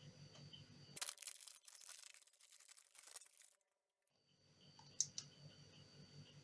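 Plastic snack wrapper crinkling and tearing open for about two and a half seconds, a dense crackle of small clicks. Then a brief near-silent gap.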